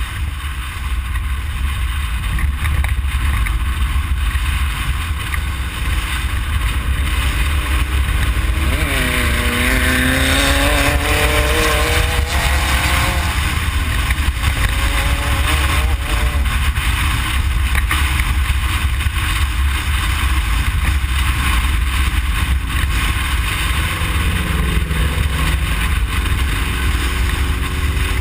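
Inside the cabin of a Ford Explorer prerunner driving fast off-road: a constant heavy rumble of the chassis and tyres over rough ground under the engine. About nine seconds in the engine note drops sharply and then climbs as it accelerates, and it rises again near the end.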